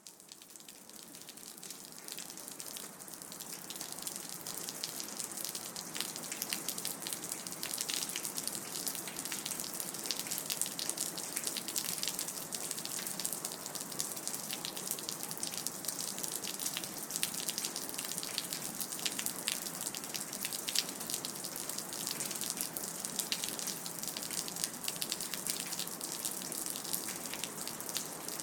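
Rain dripping: a dense, irregular patter of drops over a steady wash of water, fading in over the first few seconds.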